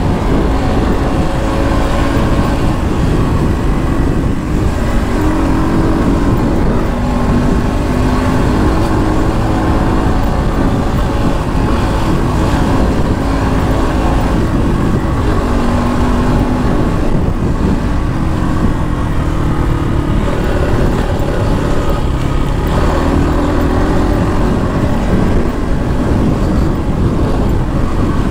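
Trail motorcycle engine running hard, its pitch rising and falling as the rider opens and eases the throttle, over a heavy rumble of wind and road noise.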